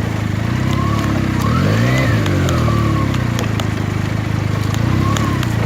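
Benelli TNT 300's parallel-twin engine running steadily, revving up once and dropping back about two seconds in.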